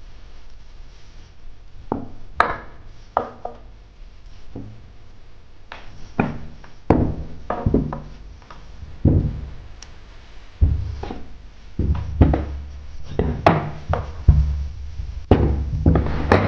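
Cloth being handled and pressed with a heavy iron on a wooden tabletop: irregular knocks and thumps, coming closer together and heavier in the second half, with low rumbling as the iron is worked over the fabric.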